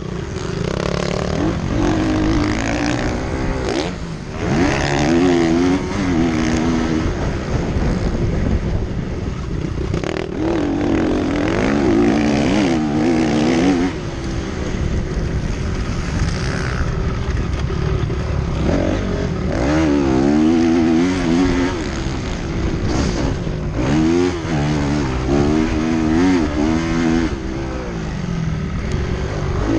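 Motocross motorcycle engine revving hard, its pitch rising and falling over and over as the throttle is opened and closed.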